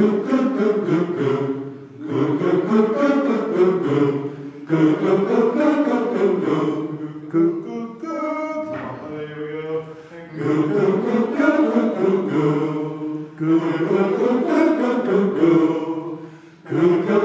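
Men's chorus singing a cappella in short repeated phrases of two to three seconds each, with brief breaks between them, as in vocal warm-up exercises. A softer phrase comes near the middle.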